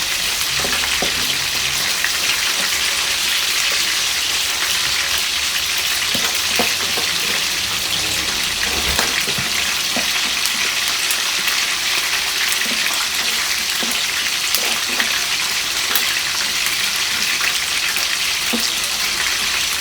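Chicken pieces frying in hot oil: a steady sizzle with scattered small pops and crackles.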